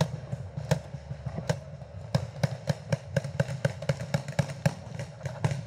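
Paintball markers firing: sharp pops in quick, irregular succession, a few shots a second.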